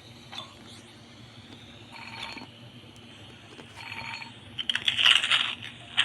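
Close-up eating and food-handling noises: two short rustles, then a loud run of crackling and clicks about five seconds in, like crunching food or crinkling packaging.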